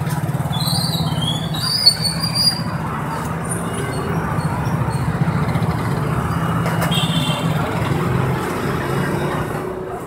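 Key-duplicating machine's electric motor switching on and running with a steady hum, its cutter and brush wheels spinning. It gives a few short high squeals, and there is a sharp click about two seconds in.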